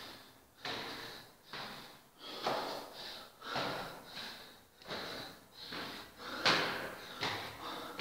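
Heavy, rhythmic breathing of a person out of breath from climbing stairs, about one breath a second, the loudest near the end.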